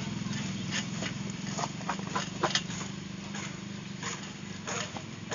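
Plastic tarpaulin rustling and crinkling in short scrapes and clicks as it is worked onto a metal tube of a wing frame, over a steady low hum.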